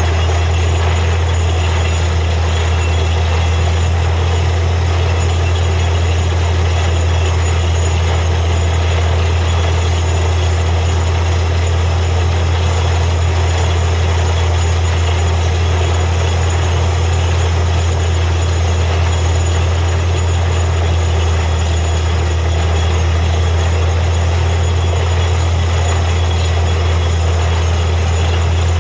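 Truck-mounted borewell drilling rig running steadily while drilling, a loud constant engine drone with a low hum and a noisy rush of machinery over it.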